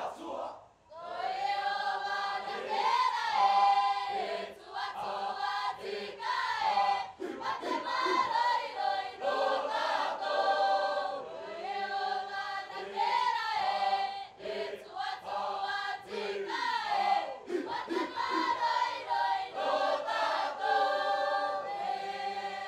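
A large group of young voices singing a Cook Islands song together in harmony, without instruments. The singing breaks off briefly about a second in and stops just before the end.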